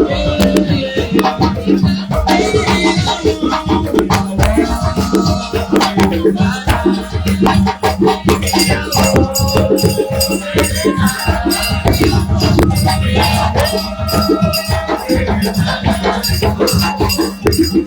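Upbeat music driven by a fast, steady beat of shakers and drums over a sustained bass line.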